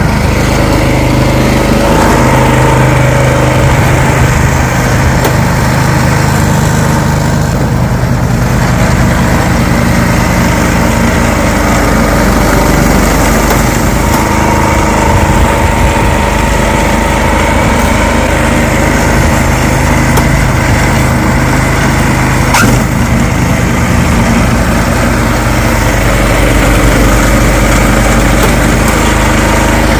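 A gasoline snow blower engine running steadily under load as it clears snow. There is one brief sharp knock about two-thirds of the way through.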